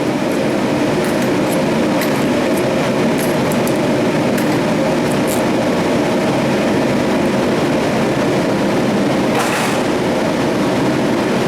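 A power tool runs steadily without a break, cutting into the steel casing of a refrigerator compressor, with a few faint clicks.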